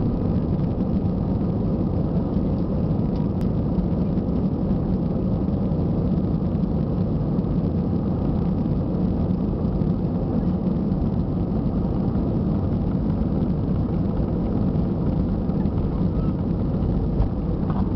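Airbus A320 engines and airflow heard from inside the passenger cabin: a steady low rumble at low thrust while the airliner taxis, with no rise in power.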